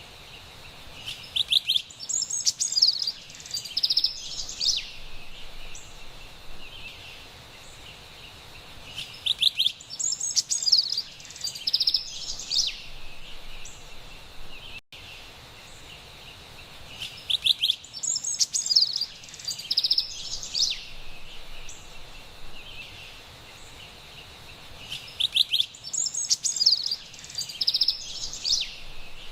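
Carolina wren songs: four bright, rapid bursts of about three seconds each, roughly eight seconds apart, over a faint steady background hiss.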